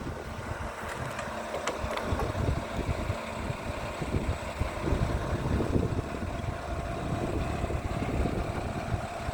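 Boatyard forklift engine idling with a steady low rumble.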